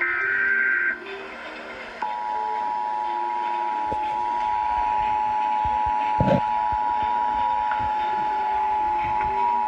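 Emergency Alert System broadcast opening a Required Monthly Test. First, the last of the digital SAME header bursts, a harsh warbling data sound lasting about a second. Then, after a short pause, the two-tone EAS attention signal starts and holds steady as two close-pitched tones, with a brief low thump about six seconds in.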